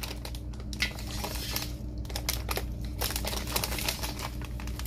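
Plastic bag crinkling and rustling in irregular bursts, over a low steady hum.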